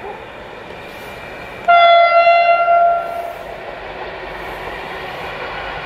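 Approaching electric passenger train sounding its horn once: a sudden, loud, high single-note blast lasting about a second and a half, starting about two seconds in. A steady rumble from the train closing in runs underneath.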